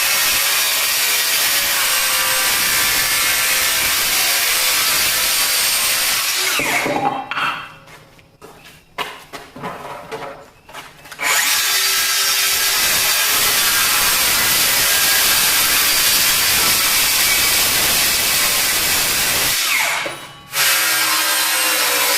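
Frontier OS27 portable bandsaw sawmill running and its blade cutting through cherry wood, a loud steady saw noise. About seven seconds in it winds down with a falling pitch and drops away, then comes back suddenly about four seconds later, and dips again briefly near the end.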